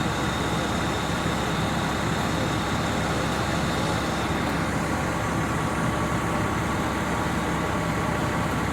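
Fire apparatus diesel engines running steadily, a constant low rumble with a faint steady whine above it.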